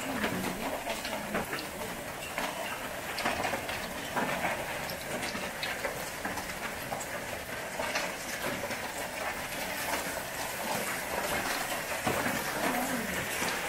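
Heavy hailstorm: hail and rain pelting down on a wooden deck and garden. A steady hiss of falling precipitation, dense with sharp ticks of hailstones striking.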